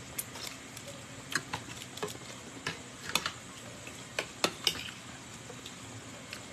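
Eating close to the microphone: irregular sharp clicks and taps of cutlery against a plate, about a dozen, with the loudest few a little past the middle.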